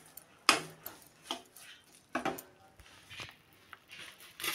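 Steel spoon scraping and knocking against a kadhai while stirring thick roasted gram-flour paste in ghee: a few separate scrapes about a second apart, the sharpest about half a second in.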